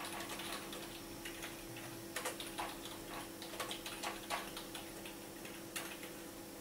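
Computer keyboard being typed on: irregular key clicks in short runs, over a faint steady low hum.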